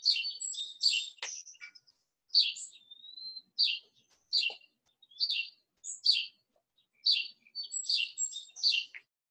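Songbirds chirping outdoors: short, high chirps repeating about once a second, thicker near the start and near the end, with a short whistled note about three seconds in.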